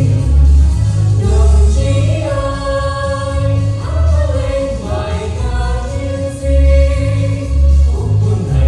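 A vocal trio singing a march in harmony over a backing track with a steady, heavy bass beat.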